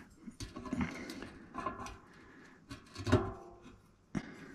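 Metal clicks and knocks of a bicycle cassette being handled and lined up onto the rear hub, with one louder knock about three seconds in.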